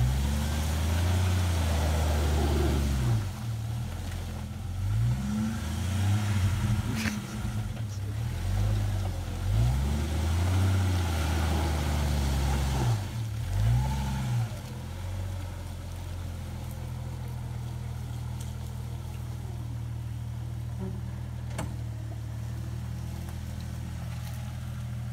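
1996 Jeep Grand Cherokee ZJ's engine revving up and down again and again as it works through deep mud, then settling to a steady, lower run about fifteen seconds in.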